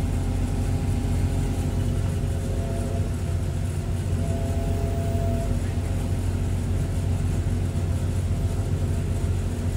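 Sumitomo hydraulic excavator's diesel engine running steadily, with a faint higher whine a few seconds in.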